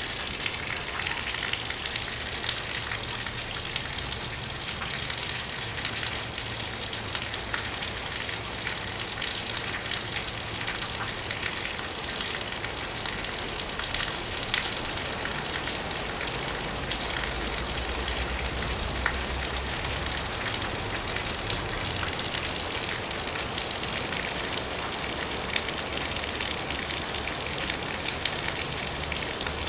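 Steady rain hiss with water pouring and splashing off a roof edge, sprinkled with scattered sharp drip clicks.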